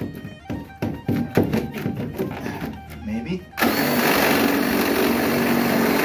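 Power drill boring a hole through wood, starting abruptly about three and a half seconds in and running steadily. Before it, a series of short knocks and clicks.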